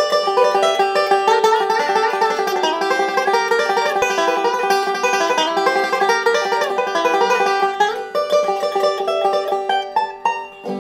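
Five-string resonator banjo playing a fast bluegrass passage of rapidly picked notes. The notes thin out after about eight seconds and finish on a chord left ringing.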